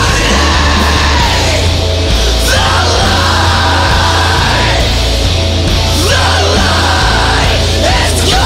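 Loud hardcore song played by a full band, with a lead vocal screamed into the microphone.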